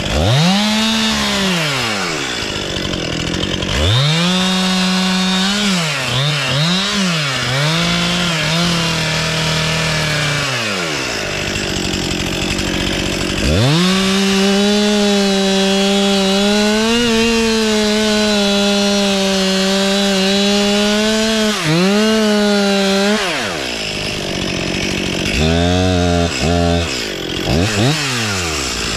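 Chainsaw revving up into cuts and dropping back between them, cutting wood: a short burst at the start, a stretch of cuts with the revs dipping several times, then one long steady cut of about nine seconds, and a few quick blips of the throttle near the end.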